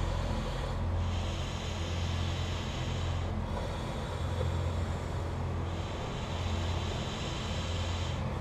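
Sponson (inflatable side tube) of a Nautiraid Grand Narak 550 folding kayak being blown up through its inflation tube. It comes in long airy blows of about two seconds each, four in a row with brief breaks between them, over a steady low hum.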